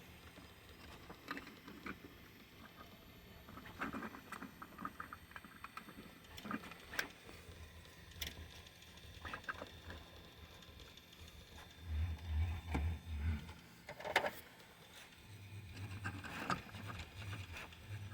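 A 3D-printed plastic slab holder handled and turned by hand: scattered light plastic clicks and taps as the rotating section is worked, with low bumps of handling noise about twelve seconds in and again near the end. The part is fresh off the printer and spins a little tight.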